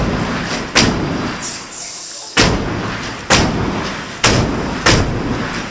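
A step team stepping in unison: six hard stomps and claps at an uneven beat, each ringing on briefly in the hall.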